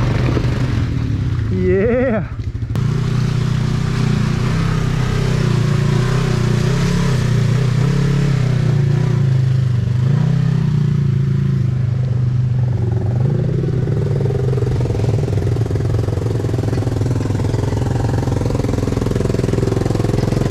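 ATV engine running steadily at low trail speed, its pitch wavering gently as the throttle changes.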